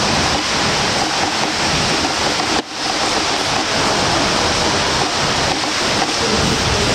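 Swimmers splashing through the water of an indoor pool: a steady wash of water noise, with a brief drop about two and a half seconds in.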